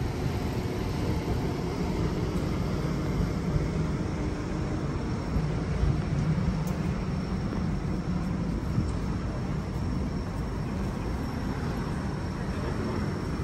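Steady low rumble of city background noise, with a vehicle-like drone and no distinct events.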